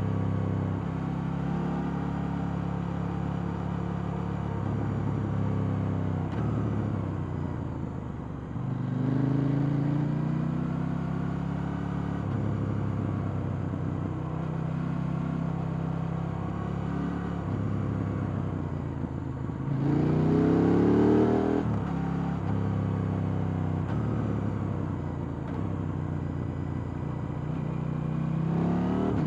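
KTM 890 Duke R's 889 cc parallel-twin engine on its stock exhaust, running under way. The pitch climbs under throttle several times. The loudest and fastest rise comes about two-thirds through and cuts off sharply.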